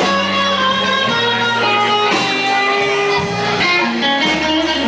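Live blues band playing, with an electric guitar, a Fender Stratocaster, carrying the melody over a steady bass line.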